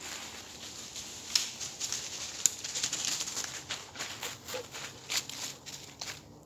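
Rustling and crackling of dry leaves and twigs, with many scattered sharp snaps, busiest in the middle.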